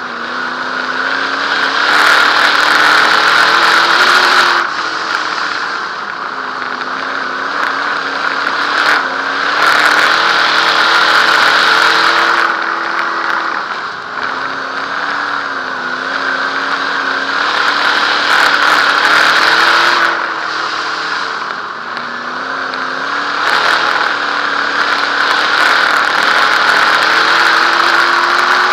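Dirt modified race car's engine heard from onboard as it laps a short dirt oval. It swells under throttle and eases off again about every seven to eight seconds.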